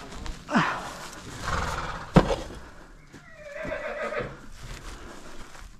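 A horse whinnies once, a wavering call of about a second starting a little past the middle. Earlier there is rustling and a single sharp knock, the loudest sound.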